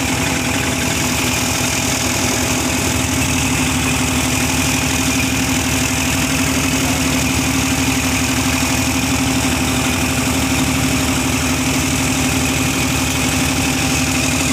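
Small engine running steadily at a constant speed, driving the mud-suction pump, with an even hum.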